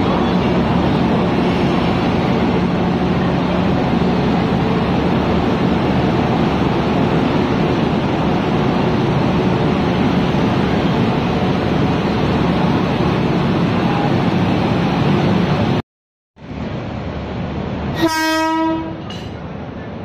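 Electric locomotive standing at the platform, its machinery giving a steady running noise with a low hum. After a brief cut near the end, the locomotive's horn gives one short blast.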